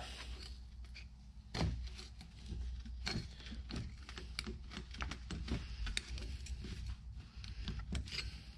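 Irregular metal clicks and light knocks as a hand tool works on the clutch hub of an automotive A/C compressor to take the clutch off, with one louder knock about one and a half seconds in.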